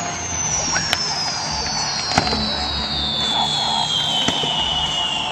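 Fireworks: a long whistle falling steadily in pitch, with a few single bangs about one, two and four seconds in.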